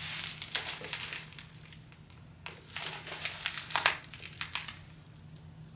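Packaging crinkling and crackling in irregular bursts as a mailed package is worked open by hand.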